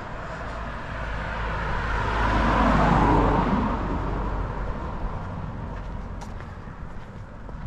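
A car passing by on the street, its engine and tyre noise swelling to a peak about three seconds in, then fading away.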